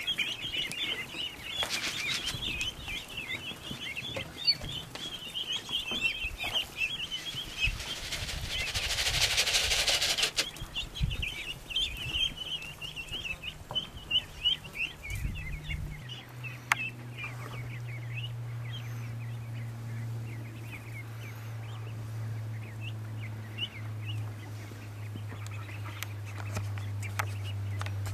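Flock of Rouen ducklings peeping: a dense run of high chirps that thins out after the middle. About eight seconds in there is a loud hissing noise lasting a couple of seconds, and from just past the middle a steady low hum comes in under the peeping.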